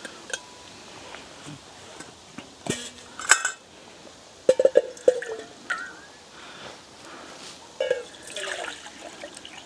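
Water poured into a small Solo Stove camping pot in several short goes: glugs and splashes with a few sharp clinks, separated by pauses.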